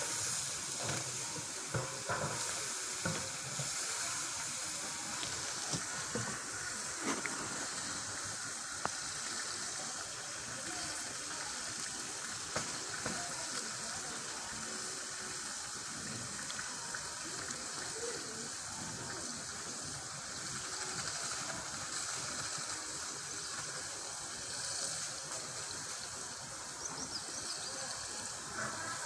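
Potato cubes and rice frying in oil in a large aluminium pot, a steady sizzle, with a long-handled ladle stirring through them.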